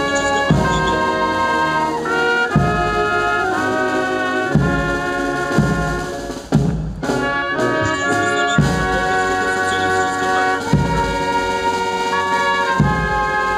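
Brass band playing a slow piece in held chords, with a drum stroke about every two seconds.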